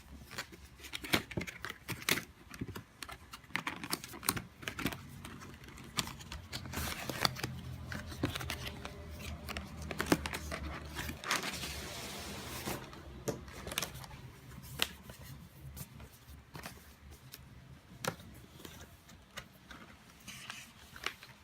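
Headphone packaging being handled and opened: crinkling and tearing, with many sharp clicks and taps throughout and a longer stretch of crinkling around the middle.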